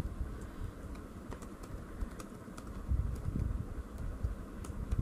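Computer keyboard typing: irregular key clicks while a short phrase is typed, over a low background rumble.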